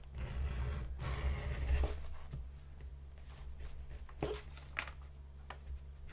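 Edge beveler scraping along the edge of damp, freshly dyed veg-tan leather for about two seconds, snagging a little because the leather is still wet. Then a few light separate clicks as the tool and leather are handled.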